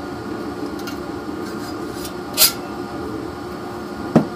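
Chainsaw parts being handled on a wooden workbench over a steady background hum: a brief metallic scrape about halfway through, then a single knock near the end as the removed muffler can is set down on the bench.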